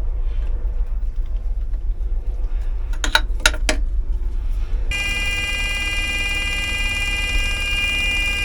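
A few sharp clicks about three seconds in. Then, about five seconds in, a steady electric buzzer tone starts and holds, with a low rumble underneath, as the diesel fuel system is being bled of air after a filter change.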